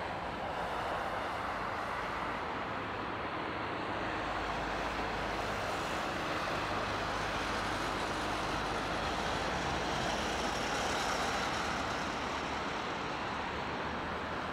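Boeing 787-8 airliner on final approach, its GEnx jet engines heard from a distance as a steady rushing rumble that swells slightly about ten seconds in as the aircraft draws nearer.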